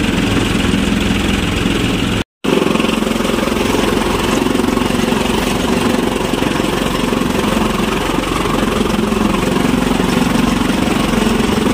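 Tractor-powered chaff cutter running steadily under load as straw is fed in, the tractor engine's drone under the noise of the cutter and blower. The sound breaks off for a moment about two seconds in.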